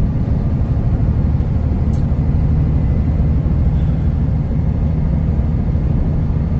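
T360 concrete agitator truck's diesel engine running steadily under way, a low even drone with road noise, heard from inside the cab. A faint tick sounds about two seconds in.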